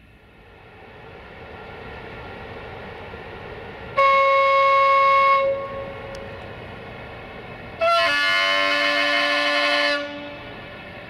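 060-EA1 electric locomotive approaching with a steady rumble that grows louder, sounding its horn twice: a single-note blast about four seconds in, then a longer, fuller blast about eight seconds in.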